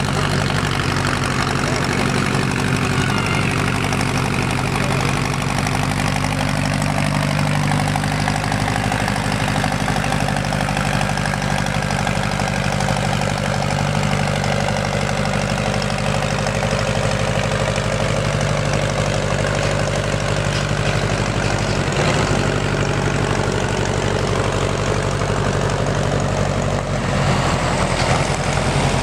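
Farm tractor engines idling steadily in a low hum between pulls.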